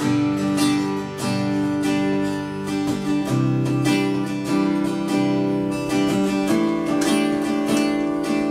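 Acoustic guitar strummed in a steady rhythm, an instrumental passage with no singing, the chord changing about three seconds in and again about six and a half seconds in.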